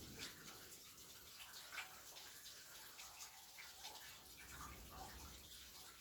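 Rain falling, faint and steady, with many irregular taps of individual drops landing close by.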